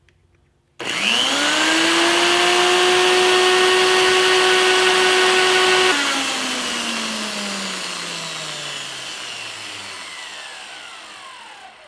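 Jancy magnetic drill's motor switched on, quickly spinning up to a steady high whine that holds for about five seconds. It is then switched off and coasts down, its pitch and level falling slowly over the last six seconds.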